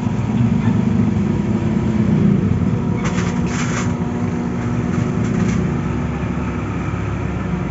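A motor vehicle engine running steadily with a low hum. There are short clattering rattles about three seconds in and again about five seconds in.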